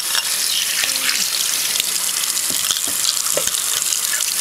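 A kitchen tap running into a stainless steel sink, with water splashing off a perforated rangehood diffuser panel held under the stream and rinsed by hand. The hiss is steady throughout.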